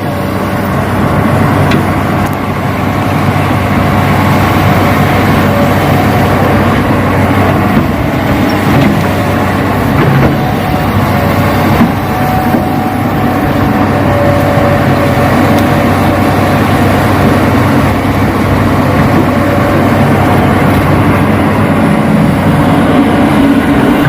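Radio-controlled Hitachi model excavator working, its motors running with a steady mechanical drone.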